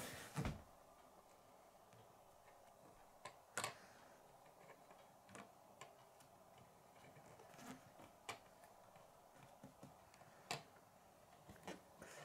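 Near silence broken by a handful of faint, scattered clicks and taps as a small Lego brick model is handled and set down on a wooden tabletop.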